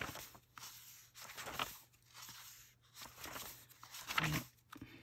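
Paper pages of a coloring book being turned by hand, rustling in several soft swishes.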